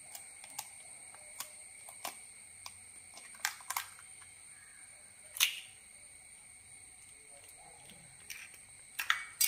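A knife tapping and cracking open a chicken egg's shell: a string of light, sharp clicks at irregular intervals, the loudest about five and a half seconds in.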